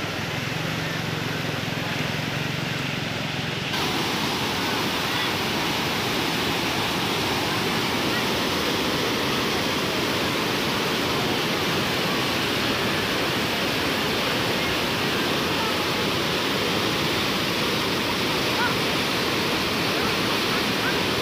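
Fast, muddy floodwater rushing in a steady, loud torrent. For the first few seconds there is a quieter wash of water on a flooded road with a low engine hum from a motorcycle riding through it; then, after a sudden cut, the louder rushing of the flood torrent fills the rest.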